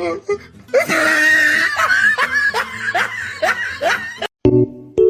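A person laughing hard in a string of pulses, about two or three a second. Near the end it cuts off abruptly and piano music starts.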